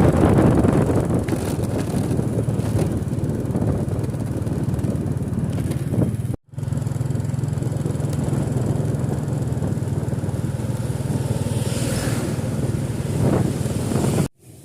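A motor vehicle running on the road, with steady engine hum and road noise. The sound cuts out briefly twice.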